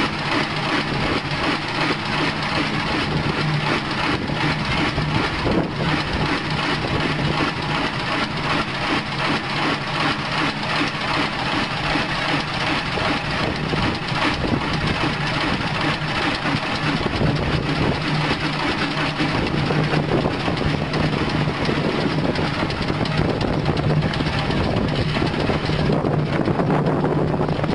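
Large antique multi-cylinder stationary engine running steadily, a dense, even mechanical clatter with a constant low hum.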